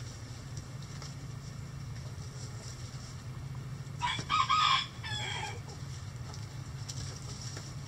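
Rooster crowing once about four seconds in, a loud call with a drawn-out falling end, over a steady low hum.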